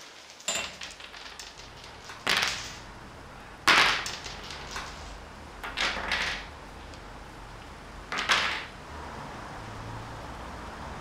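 Mahjong tiles clacking and clattering in about five separate bursts, the loudest about four seconds in.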